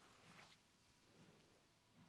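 Near silence, with a faint soft rustle of hands rubbing hair and scalp in a head massage, strongest in the first half second.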